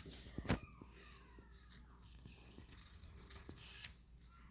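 A pen drawing on paper: faint scratching strokes, with a sharp tap about half a second in.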